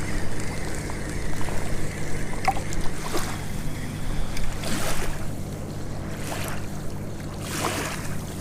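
A steady low motor hum with several short, noisy swishes over it.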